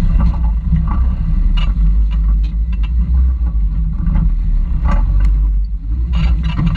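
Toyota rock crawler's engine running with a steady low rumble as it crawls up sandstone ledges, with scattered sharp clicks and knocks several times along the way.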